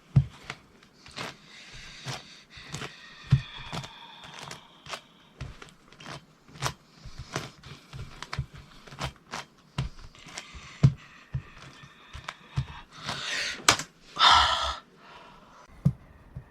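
Plastic layers of a QiYi 9x9 magnetic ball-core cube clicking and clacking at irregular intervals as they are turned by foot. Near the end there is a louder rushing sound lasting about a second.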